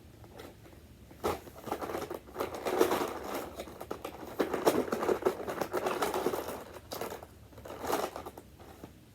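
Plastic packaging crinkling and rustling in irregular handfuls, with a few sharp clicks, as a pack of plastic army men is handled and opened.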